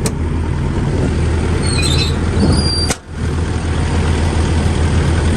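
Hitachi ZX135US-3 excavator's diesel engine running steadily at idle, a low drone, with a few brief high-pitched squeaks about halfway and a momentary break in the sound about three seconds in.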